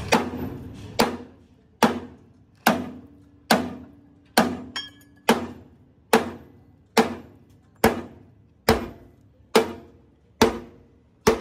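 A hammer striking a steel part, about fourteen evenly spaced blows a little faster than one a second, each blow ringing briefly with a clear metallic tone.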